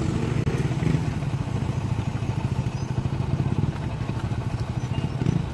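Heavy truck engine running with a steady low rumble while it pulls a toppled, loaded dump truck upright with a cable.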